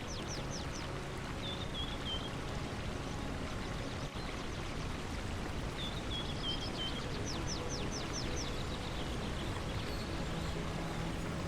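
Running stream water, a steady rushing, with a bird calling over it: a fast series of high falling chirps at the start and again about six seconds in, each followed by a few short lower notes.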